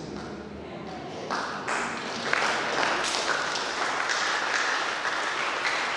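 Congregation applauding: clapping swells up about a second and a half in and then continues steadily.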